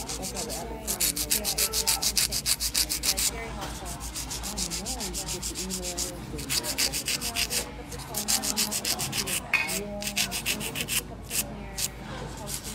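Hand nail file rasping quickly back and forth across a fingernail, in fast even strokes that come in spurts, with a softer stretch in the middle and short breaks near the end.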